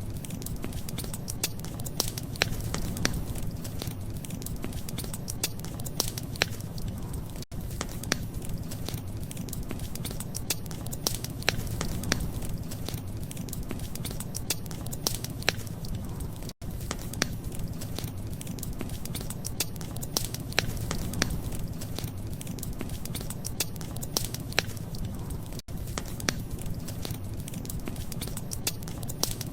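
Wood fire crackling, with many sharp pops and snaps over a steady low rumble. The sound cuts out for an instant three times, about every nine seconds, where a short recording loops.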